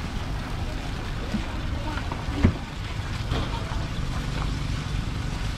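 Steady low outdoor rumble at a street food stall, with faint light scrapes of a spoon spreading crepe batter on the steel griddle and one dull thump about halfway through.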